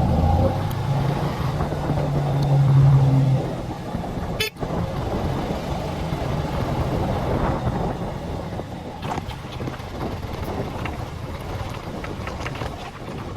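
Motorcycle ride on a road: wind and engine noise. A steady, low horn-like tone sounds for the first three seconds or so, growing louder before it stops. After a short break in the sound, an even rushing noise carries on.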